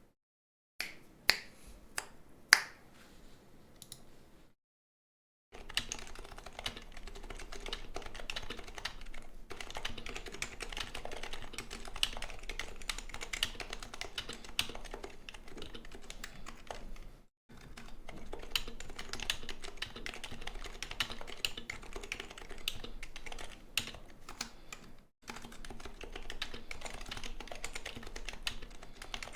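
Happy Hacking Keyboard Professional Type-S with silenced 45 g Topre switches being typed on. A few separate sharper clicks come in the first seconds, then after a short break comes steady, continuous typing with two brief pauses.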